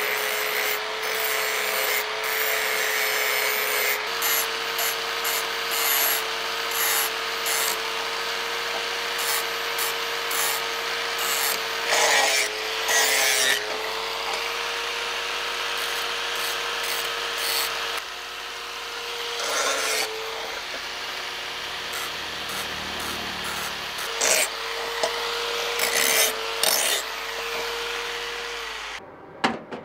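Handheld angle grinder running with a steady whine, its disc grinding along the edge of a curved serrated steel blade in repeated scraping passes. The motor pitch sags briefly under load a couple of times, and the grinder cuts off near the end.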